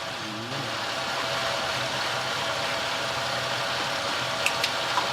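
1997 Chevy Malibu's engine idling steadily, with three sharp clicks near the end.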